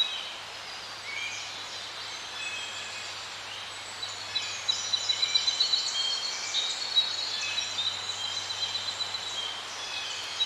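Several small birds chirping and twittering, a few scattered calls at first and a busier chorus from about four seconds in, over a faint steady low hum.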